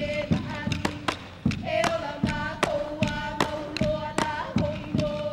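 Hawaiian chant for hula kahiko: a chanter's voice held on a steady pitch, with a regular drum beat of low thuds and sharp taps, about two to three beats a second.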